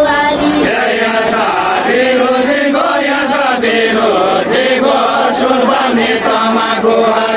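Deuda, a far-western Nepali folk song, sung by a group of voices without instruments, in long held notes that glide between pitches.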